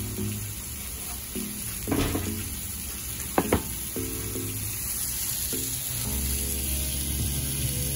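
Sliced cremini mushrooms sizzling in a stainless steel skillet, a steady frying hiss. There are two sharp clicks about three and a half seconds in.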